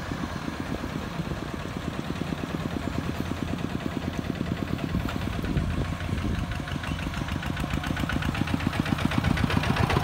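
Kubota DC-70 rice combine harvester's diesel engine running steadily while the machine cuts through the crop: a rapid pulsing hum that grows slightly louder near the end.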